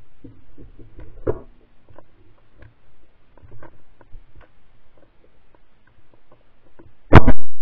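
Faint scattered clicks and rustles, then a single very loud shotgun shot near the end.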